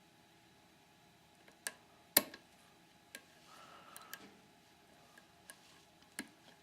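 Lock pick and tension wrench working the pins of a dead-core Master Lock No. 570 padlock: sparse small clicks and taps, about seven in all, the sharpest a little over two seconds in. The pick is on pin 2, which is giving counter-rotation as it is pushed toward setting.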